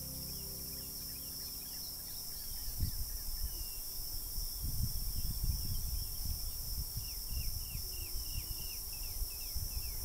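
Outdoor garden ambience: a steady high insect drone of crickets under a bird calling in short, falling chirps, with a quick run of them between about seven and nine and a half seconds in. Low, uneven rumbling starts about three seconds in.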